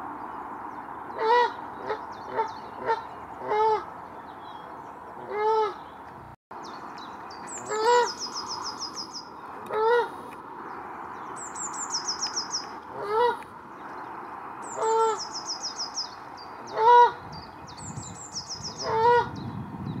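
Canada geese honking: a dozen or so separate nasal honks, a second or two apart, some in quick pairs. Between them, a songbird's high trill falls in pitch four times.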